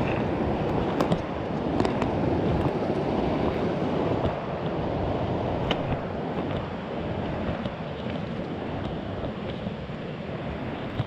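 Mountain creek water rushing steadily, with a few light clicks.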